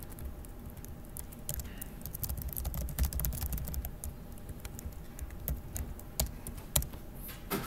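Typing on a laptop keyboard: irregular, quick key clicks, over a low steady room rumble.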